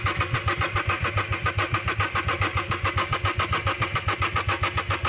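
Renault Kwid's three-cylinder petrol engine being cranked by its starter motor in rapid, even pulses without ever firing: a crank-no-start, which the mechanics put down to engine oil on the spark plug tops shorting the plugs.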